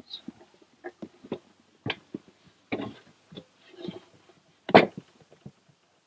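Knocks, rubs and thumps of a knobby Maxxis Bighorn ATV tire on its wheel being lifted, turned and laid down on a wooden table, with the loudest knock near the end.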